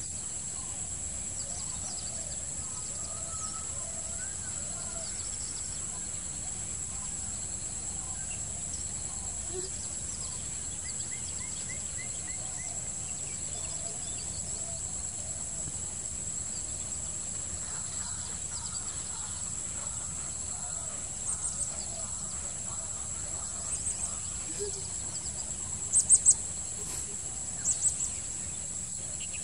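Steady, high-pitched insect drone, with scattered faint bird chirps. In the last third come several short, shrill bird calls in quick pairs and clusters, the loudest a little after two-thirds of the way through.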